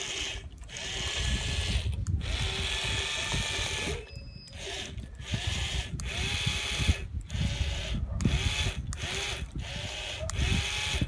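Small DC motor of a homemade popsicle-stick toy truck whirring through its gearing in repeated short runs, cutting out abruptly about every second, its pitch rising and falling with each run.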